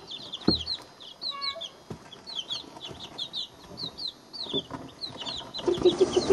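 A brood of week-old chicks (barred rocks, silver laced wyandottes, blue copper marans and ISA reds) peeping steadily: many short, high peeps, each sliding downward, several a second. A few dull knocks come through, and near the end a louder, lower rapid stuttering sound.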